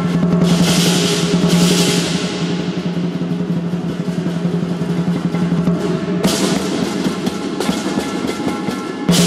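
Lion dance percussion: a large Chinese lion drum beating a rapid roll, with cymbals crashing in loud washes about half a second in, around six seconds in and again near the end.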